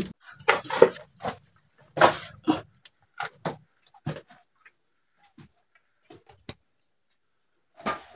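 Footsteps scuffing and knocking over the rocky cave floor, in uneven bursts with short gaps between them.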